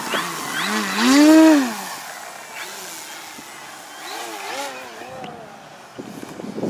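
Radio-controlled Cessna 170 model plane's motor and propeller, rising in pitch and falling away about a second in as it throttles up and flies past. A second, fainter rise and fall comes about four seconds in.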